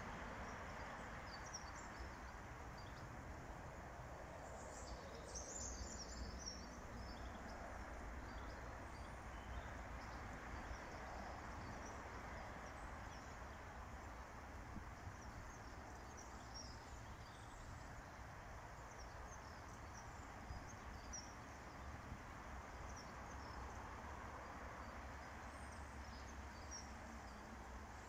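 Shallow stream running steadily over stones, with small birds chirping now and then high above the water sound.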